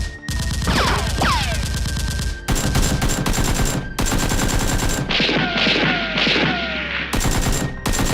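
Rapid automatic gunfire sound effects in long continuous bursts with brief breaks, mixed with several falling whistling tones.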